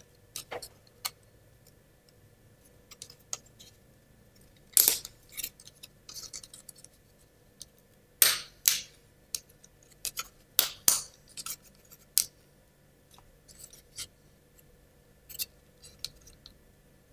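Wooden model-kit parts clicking and knocking as they are pressed and fitted together by hand: an irregular string of short sharp clicks, with the loudest snaps about five, eight and eleven seconds in.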